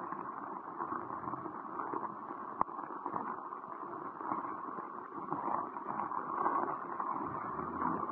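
Steady, muffled hiss of heavy rain falling on floodwater, through a phone microphone. One sharp click about two and a half seconds in.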